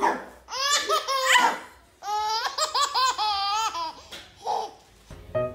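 A baby laughing hard in two long bouts of high-pitched, choppy belly laughter, with a short breathy laugh near the end.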